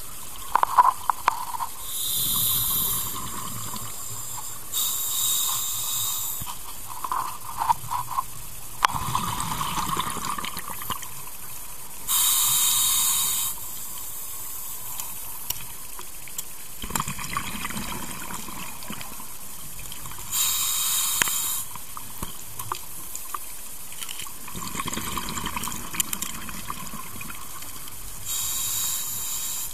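A scuba diver breathing through a regulator underwater: a sharp hiss of each inhalation about every seven or eight seconds, with the rumbling, crackling bubbles of the exhaled air between.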